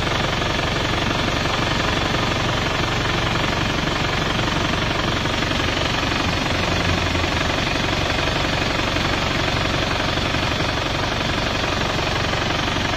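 Turbo diesel engine idling steadily, running on purging cleaning fluid fed from a hanging canister through a hose in place of its normal fuel supply.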